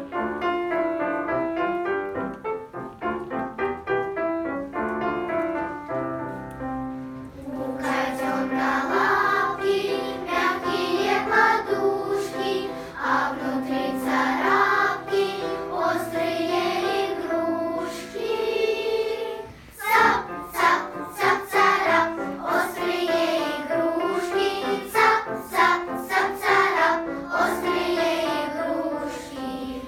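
A children's choir sings a song with instrumental accompaniment, entering after an instrumental introduction of about seven seconds.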